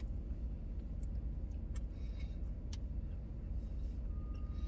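Pickup truck engine idling, a steady low rumble heard from inside the cab, with a few faint clicks.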